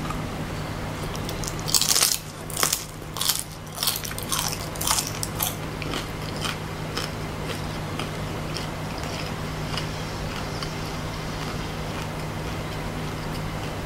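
A person crunching through the hard shell of a deep-fried insect: several loud crisp bites over a few seconds, then fainter chewing crunches that die away. A steady low hum runs underneath.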